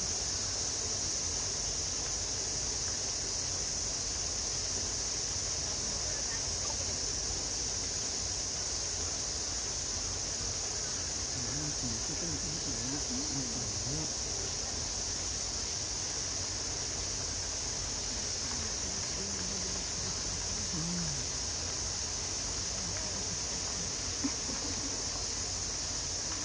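Steady, high-pitched chorus of summer cicadas, with faint distant voices now and then.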